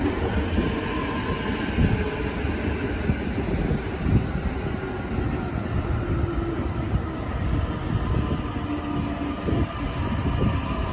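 JR East E235-1000 series electric train starting to pull away from the platform, its traction motors giving a faint whine that rises slowly in pitch as it gathers speed, over a low rumble.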